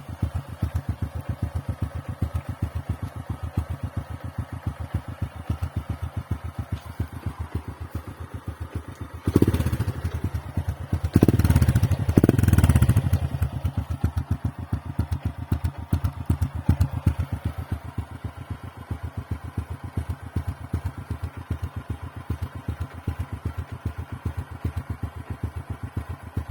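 Motorcycle exhaust with its muffler gutted ('kalkal' pipe, baffles scraped out), idling with an even, loping beat. It is revved in three short blips a little under halfway through, then drops back to idle.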